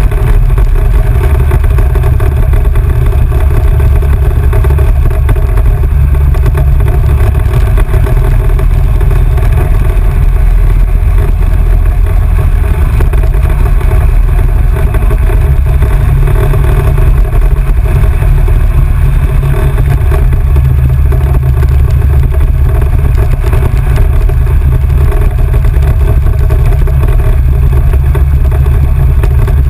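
Off-road vehicle running steadily along a rough dirt road, with a loud, heavy low rumble and no breaks.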